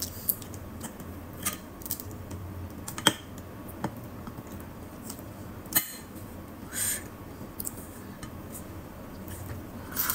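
Cooked crab being eaten by hand: scattered sharp clicks and cracks of the shell being pulled apart, a short scrape a little past the middle, and a crunchy bite into the shell near the end.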